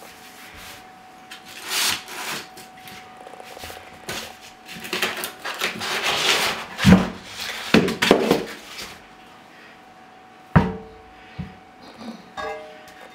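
Thick corrugated cardboard sheet scraping and rustling as it is dragged across a tile floor, in bursts over several seconds, with a few sharp knocks.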